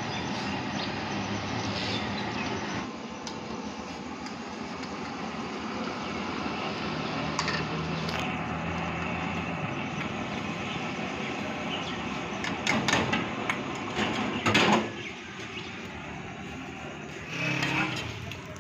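Steady noisy street background with engine sound running through it, and a cluster of loud knocks and clatters about twelve to fifteen seconds in.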